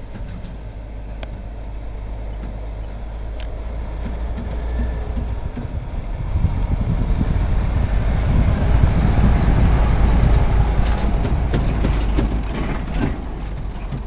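MAN truck pulling a loaded low-loader trailer drives past: its diesel engine and tyres rumble, growing louder to a peak about nine seconds in, then fading as it moves away.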